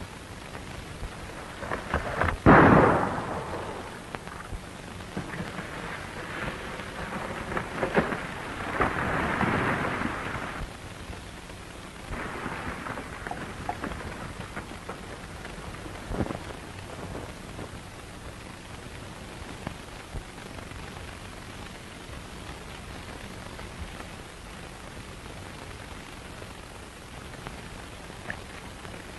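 A revolver shot about two and a half seconds in, with a long booming tail, over the steady hiss of an old film soundtrack. Quieter bangs and a swell of noise follow between about eight and ten and a half seconds.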